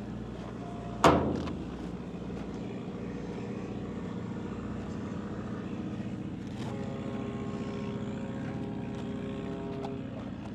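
Boat engine running steadily with an even hum. About a second in there is a single loud knock that rings briefly. Near the end, several steady higher tones sound over the hum for about three seconds.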